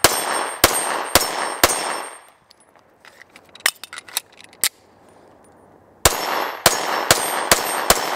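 SCCY CPX-2 9mm pistol fired fast through its long double-action-only trigger: a string of four shots about half a second apart, then light metallic clicks of the pistol being handled, then another string of five shots.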